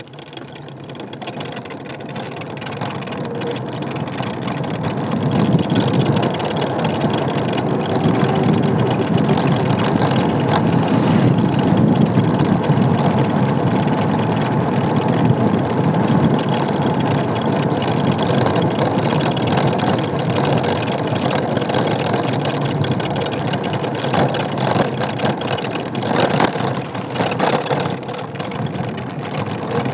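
Ola S1 electric scooter on the move: road and wind noise builds over the first few seconds, then holds steady, with the dashboard and headlight housing rattling. The rattle comes from the housing's inner press-fit mounting, which the owner thinks has worked loose, leaving a gap.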